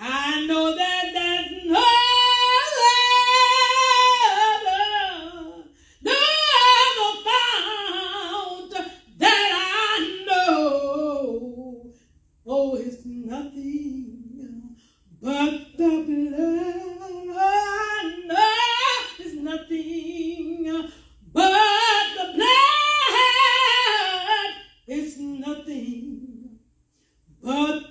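A woman singing a solo unaccompanied into a handheld microphone, in phrases of long held notes with vibrato, each followed by a brief pause.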